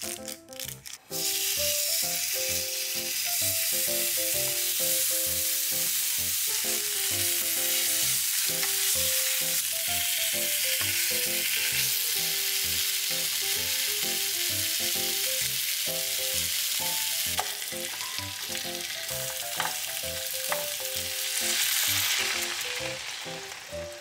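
Spice-rubbed pork pieces sizzling steadily as they sear in a frying pan, the sizzle starting about a second in; a few light clicks sound in the second half.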